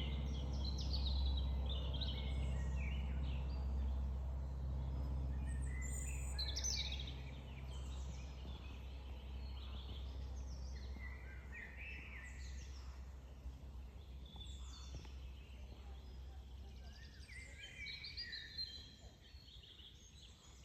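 Several songbirds singing and calling in a forest, short chirping phrases overlapping throughout. Under them is a low steady hum that drops away after about seven seconds.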